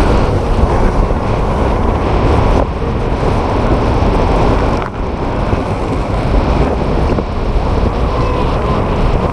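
Strong sea wind buffeting the microphone in a loud, steady rumble, with the wash of waves underneath.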